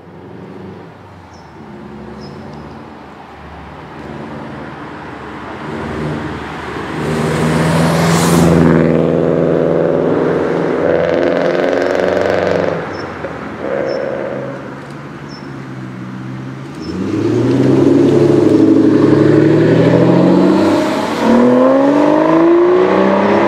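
2013 Aston Martin Vanquish's V12 engine running at low revs as the car rolls closer, growing steadily louder. In the last seven seconds it accelerates with the pitch rising, briefly drops, and then rises again.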